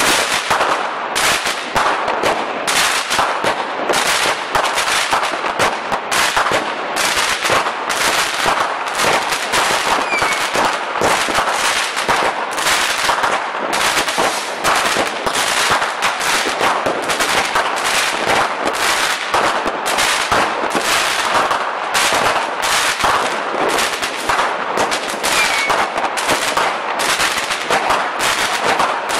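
Fireworks going off in rapid succession: a dense, unbroken string of sharp cracks and bangs, several a second, with little deep boom.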